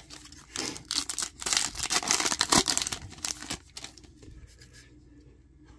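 A 2022-23 Upper Deck Allure hockey card pack wrapper being torn open and crinkled by hand, in a run of crackling rips that fades out at about three and a half seconds.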